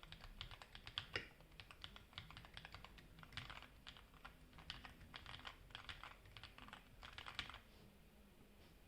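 Typing on a HyperX Alloy Elite RGB mechanical keyboard rebuilt with lubed Kailh Red linear switches and lubed, modified stabilizers: a quick, uneven run of soft keystrokes that stops about seven and a half seconds in.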